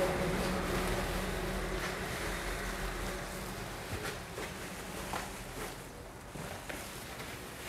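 A motor vehicle's engine running, its low hum fading over the first few seconds into a steady street background, with a few light knocks around the middle.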